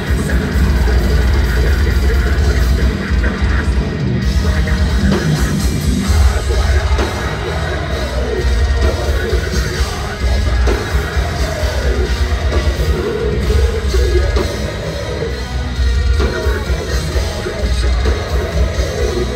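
Deathcore band playing live at full volume: pounding drums and heavy distorted guitars, with harsh screamed vocals about halfway through, heard from within the crowd.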